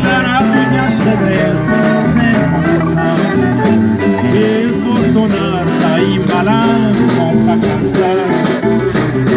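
Live acoustic music: guitar playing with a shaker keeping time, between sung verses.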